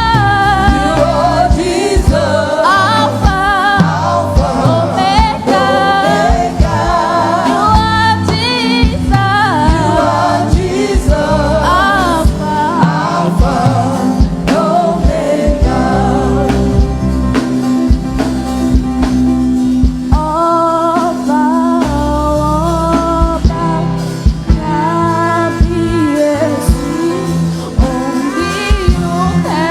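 Gospel praise singing with lead vocals over a band with bass and a steady drum beat.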